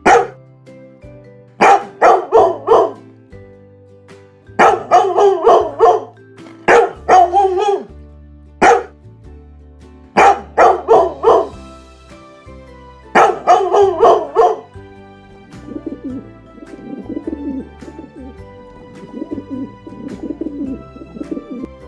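A dog barking in quick runs of three or four barks, then, about two-thirds of the way through, a pigeon cooing softly, over steady background music.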